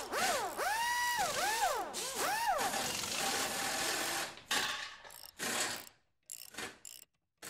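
Sound effects for an animated title sequence: a string of tones that swoop up and down, then a dense mechanical-sounding noise that breaks into short choppy bursts and drops out in gaps near the end.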